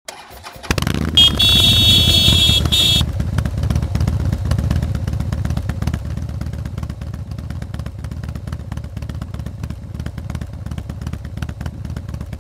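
A motor vehicle engine running steadily with a rough low rumble and crackle. A high-pitched tone sounds over it for about two seconds near the start.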